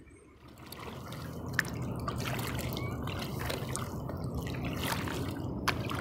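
Double-bladed kayak paddle stroking through calm sea water, with drips and trickles running off the blades. The strokes start about half a second in and grow louder over the first two seconds.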